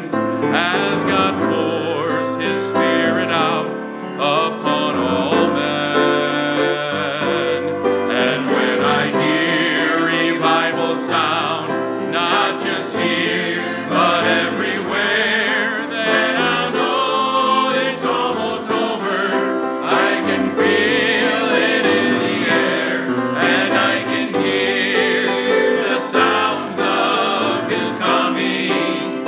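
Gospel song: voices singing over instrumental accompaniment.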